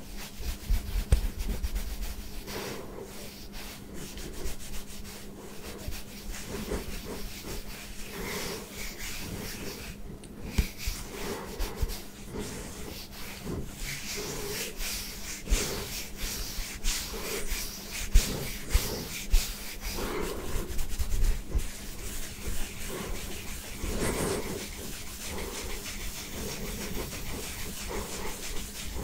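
Fingertips and palms rubbing and scratching short buzz-cut hair on a scalp, close to the microphone. It makes an irregular, bristly rasping hiss with small crackles and occasional louder scrapes.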